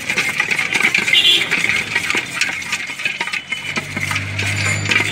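Fast, steady clattering and clinking of a stainless-steel bowl as a spiced mixture is worked around it by hand. A low, steady engine hum joins about three and a half seconds in.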